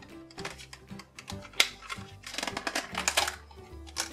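Clear plastic blister packaging crackling and crinkling in irregular clicks as it is handled and pulled from its cardboard backing, with a sharp crackle about one and a half seconds in and a busier run of crackles past the middle. Background music with held low notes plays underneath.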